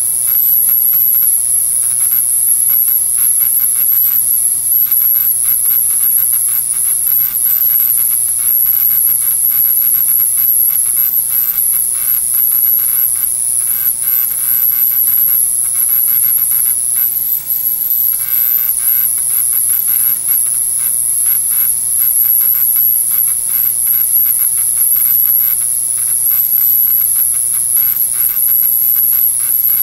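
Ultrasonic cleaner running: a steady high-pitched whine that wavers slightly, over a fine, rapid crackling buzz from the tank and a faint low hum.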